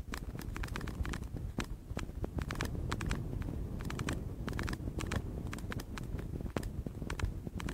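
Wind buffeting the phone's microphone as a steady low rumble, with frequent sharp, irregular clicks and crackles over it.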